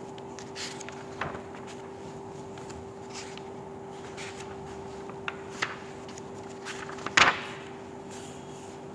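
Steady electrical or fan-like hum in a room, with a few scattered light knocks and clicks; the loudest is a single sharp knock about seven seconds in.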